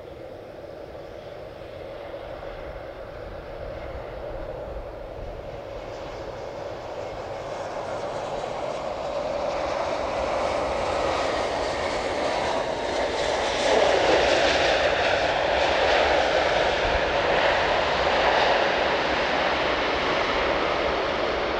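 Jet aircraft engine noise, growing steadily louder for about fourteen seconds and then holding at a loud level.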